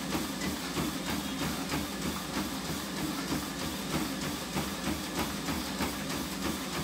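Running on a treadmill: the motor and belt hum steadily under even footfalls landing about three times a second.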